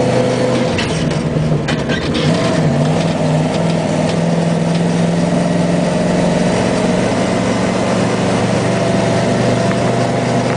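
A vehicle engine running steadily at a moderate speed, its pitch stepping slightly a few times, with a few short rattles between one and two seconds in.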